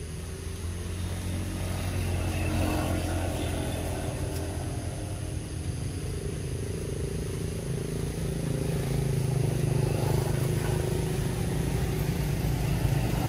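An engine running with a low, steady hum that shifts slowly in pitch and grows louder twice, about two seconds in and again near ten seconds.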